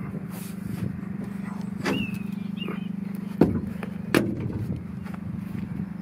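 An engine idling steadily with a low hum, with a few sharp knocks, the loudest about halfway through.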